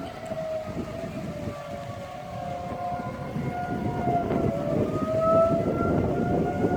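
Several outdoor tornado warning sirens wailing at once, their tones slowly rising and falling and crossing one another, sounding a tornado warning. A low rushing noise runs underneath.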